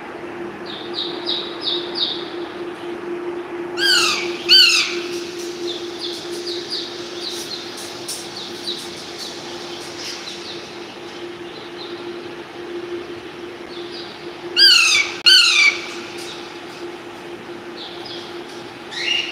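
Pet parrot squawking: two loud, harsh calls falling in pitch about four seconds in and two more near fifteen seconds, with runs of quicker, softer chirps between, over a steady low hum.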